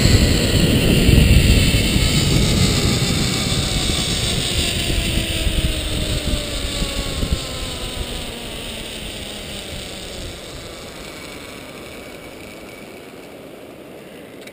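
Zipline trolley pulleys whining along the steel cable, the whine falling steadily in pitch as the rider slows toward the landing platform. Over it, wind rushes loudly on the microphone at first and dies away as the speed drops.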